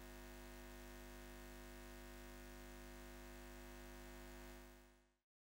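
Near silence with a faint steady electrical hum, which fades out near the end into dead silence.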